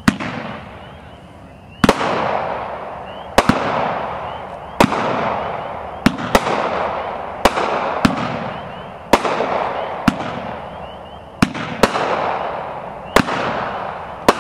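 AFW 'Unleashed' 16-shot 200-gram repeater cake firing: a dozen or so sharp bangs, one every one to two seconds, each followed by a fading hiss.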